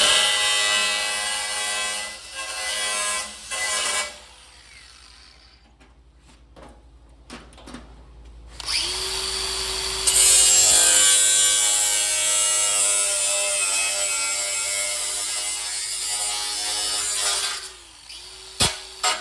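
Angle grinder cutting back the edge of a pickup roll pan: it runs for about four seconds, stops, then starts up again and runs steadily with a whine for about eight seconds before shutting off. A sharp click comes near the end.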